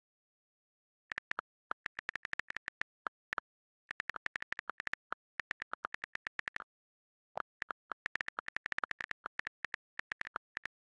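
Smartphone on-screen keyboard key clicks as a message is typed: quick runs of short, sharp ticks starting about a second in, with brief pauses between bursts.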